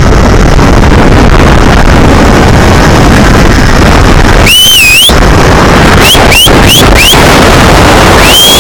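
Loud wind buffeting the microphone during a fast zipline ride. About halfway through comes a high, wavering, whistle-like cry, then four short rising chirps, and a falling cry near the end.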